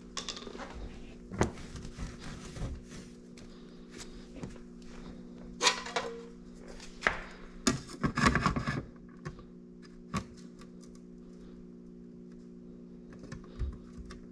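Hands working on car interior trim: scattered knocks and taps, with a few short rustling scrapes in the middle, over a steady low hum.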